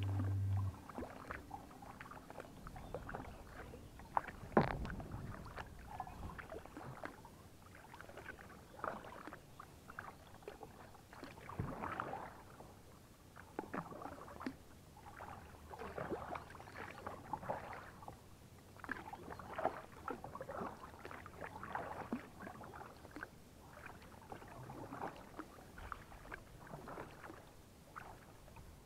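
Kayak paddle strokes in calm river water: the blades dipping and splashing with drips, quietly, a stroke every second or two, with one louder stroke about four seconds in.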